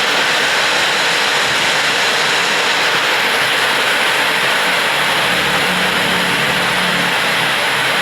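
Heavy rain pouring steadily. A low hum joins about five seconds in and fades shortly before the end.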